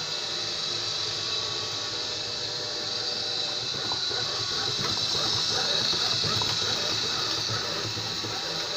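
Seebest C565 robot vacuum running on its first run: a steady whirring hiss from its suction fan and brushes, with a light rattle that gets a little louder a few seconds in.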